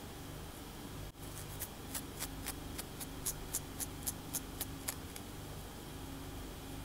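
Long acrylic nails scratching over a braided scalp in a run of about fourteen short, crisp strokes, three or four a second. The strokes start about a second and a half in and stop around five seconds.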